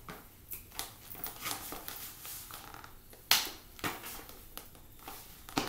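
Leather ballet flats stepping and shuffling on a tile floor: scattered soft taps and scuffs, the loudest a sharp tap about three seconds in.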